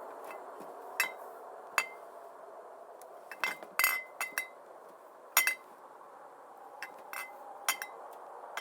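Hard objects clinking, about a dozen light strikes spaced irregularly, some in quick clusters, each with a short bright ring, over a steady hiss.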